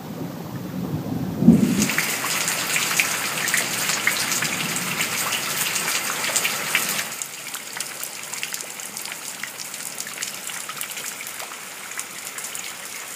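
Heavy rain splashing into standing water, a dense patter of drops hitting the surface of a full water tank and puddles. The patter comes in suddenly loud about a second and a half in and drops to a lighter, steady patter about seven seconds in.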